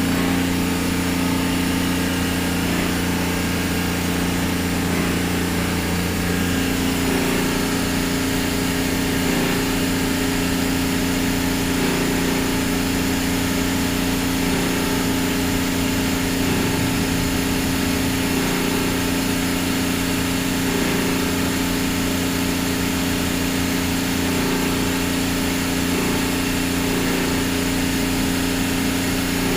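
Offshore Marine Laboratories reverse-osmosis watermaker running under pressure, making fresh water: a steady machine hum made of several fixed tones that holds level throughout.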